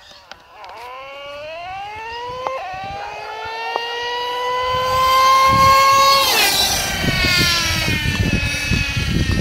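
Traxxas Revo 3.3 nitro RC monster truck's small two-stroke nitro engine at full throttle, a high-pitched whine rising steadily for about five seconds as the truck accelerates, then dropping abruptly about six seconds in and running on rougher and lower. Wind rumbles on the microphone.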